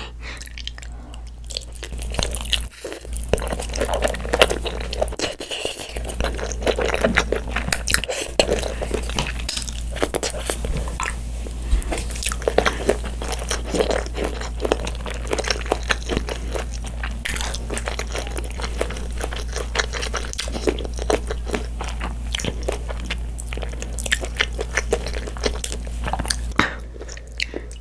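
Close-miked chewing of a mouthful of cream pasta with shrimp: a long, busy run of small crackles and clicks from the mouth, starting about two seconds in and stopping just before the end.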